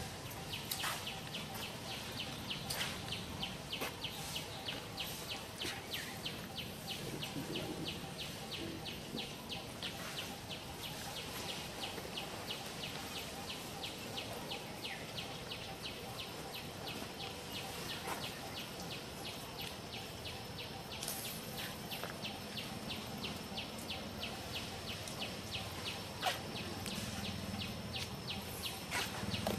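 Insects calling outdoors: a rapid, even pulsing chirr that runs on over a steady background hiss.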